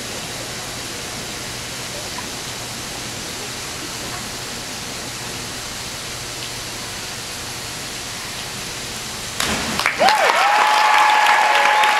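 Steady hiss of a hushed indoor pool hall while the diver stands on the 10 m platform, then about nine and a half seconds in the splash of her entry and the crowd breaking into loud applause, with a whistle held over it.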